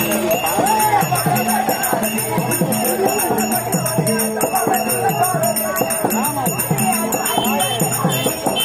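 Therukoothu street-theatre accompaniment music: a quick, steady drum beat with jingling bells, over a steady drone and a wavering melody line.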